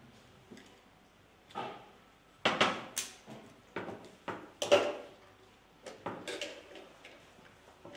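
Brass model-cannon parts and hand tools clinking and knocking against a glass tabletop as the cannon is assembled: a dozen or so irregular sharp knocks, the loudest about halfway through.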